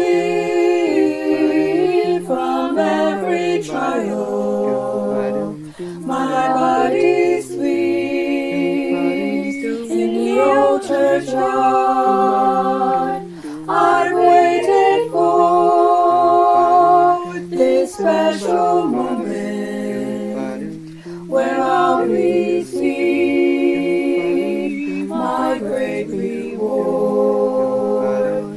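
Mixed-voice a cappella group singing in close harmony, recorded as a virtual choir, with no instruments. The voices hold chords in long phrases, with short breaks between them.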